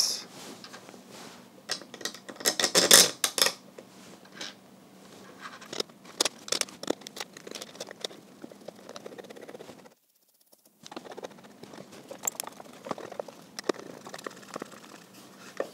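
Handling noise of small screws and a hand screwdriver: sharp clicks and rattles, densest about three seconds in, as longer machine screws are picked up and driven through a 3D-printed plastic bracket into the Home Assistant Green's metal case. A short total gap about ten seconds in.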